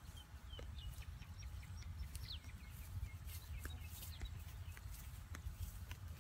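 Wind buffeting the microphone as a steady low rumble, with scattered short bird chirps and a few faint ticks over it.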